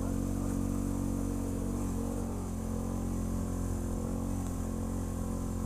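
ATV engine running at a steady speed, an even hum without revving.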